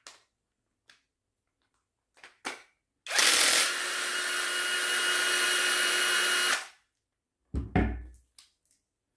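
Cordless drill-driver running for about three and a half seconds, loudest in its first half-second, as the Torx retaining screw inside its chuck is backed out. About a second after it stops, a dull knock and handling sounds.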